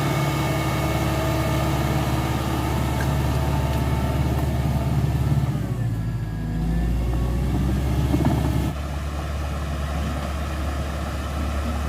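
Caterpillar D5K XL crawler bulldozer's diesel engine running steadily, its note shifting and gliding briefly around the middle. The sound drops abruptly to a quieter level about three-quarters of the way through.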